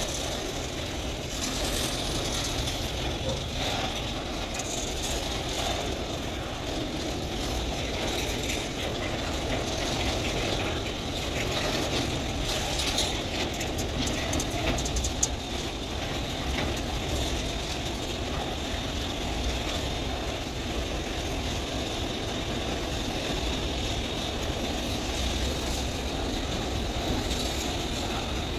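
Container freight train's flatcars rolling past, steel wheels running on the rails with a steady rumble, rattle and scattered clicks and clacks.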